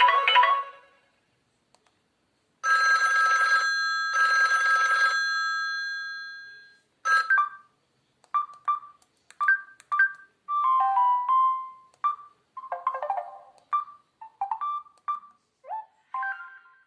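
Samsung GT-C3530's preloaded alert tones played one after another: a busy ringtone melody cut off just after the start, then after a pause two chime strikes ringing out and fading, then a string of short electronic beep melodies, typical of SMS tones.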